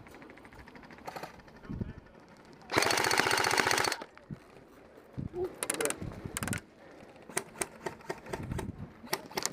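Airsoft electric rifle firing a full-auto burst of about a second roughly three seconds in, then shorter, quieter bursts and scattered single shots.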